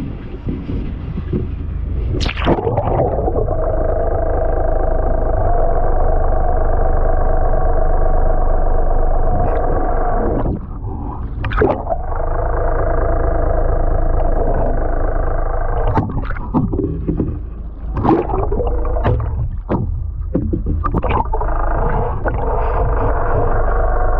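Muffled underwater drone of a boat's engine and propeller with a steady hum, heard with the camera submerged just below the surface. It begins with a splash about two seconds in and is broken by more splashing and gurgling near the middle and in the last third as the camera dips through the surface.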